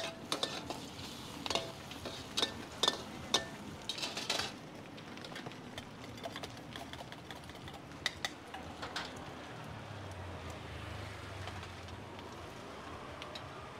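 Metal utensils clinking and tapping against cookware, with a run of sharp clicks over the first four seconds and a few more around eight to nine seconds in. A low hum swells briefly after about ten seconds.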